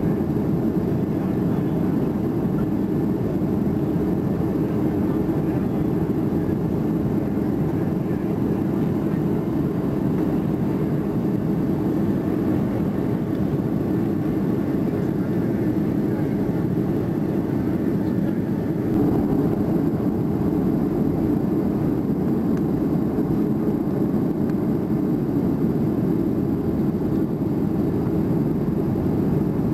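Steady low drone of a jet airliner's cabin noise heard beside the wing window, with a slight shift and rise in level about two-thirds of the way through.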